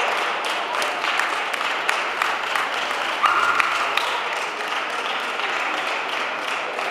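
Audience applauding: a steady run of many hands clapping, with a short high-pitched note about three seconds in.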